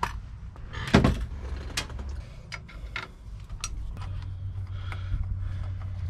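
Clicks and knocks of plastic and metal as a steering wheel's centre hub is worked apart by hand and with a screwdriver. There is one loud knock about a second in, then scattered light clicks, with a low steady hum from about four seconds in.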